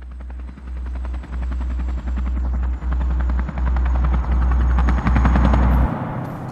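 Helicopter rotor chopping rapidly over a deep low drone that pulses about every three quarters of a second. It builds louder and cuts off abruptly near the end.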